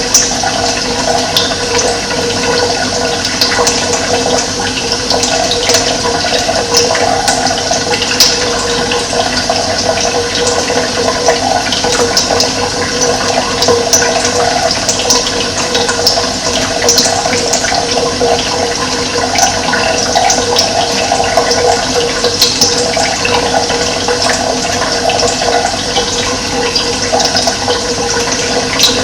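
Running water, a steady, loud rushing and splashing with no breaks.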